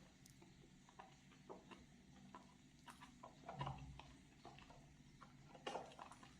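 Faint wet clicks and soft squishy crackles of a bar of soap being lathered, scattered and irregular, a little fuller about halfway through and again near the end.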